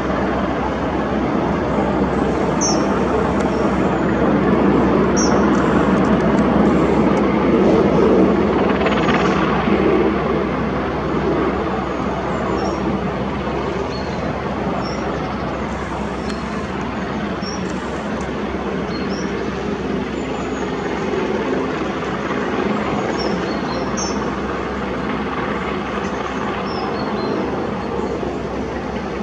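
Distant Merlin helicopter, its rotors and three turbine engines giving a steady drone that swells a little about a third of the way in.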